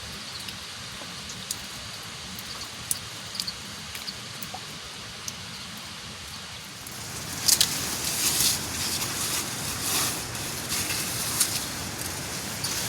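Steady rain with scattered drips. From about seven seconds in it gets louder, with a dense run of clicks and crackles.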